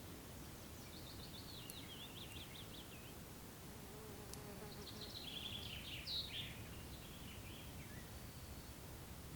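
A songbird singing two bursts of quick, chirping phrases, the second louder, while a fly buzzes past partway through, over a steady low outdoor rumble.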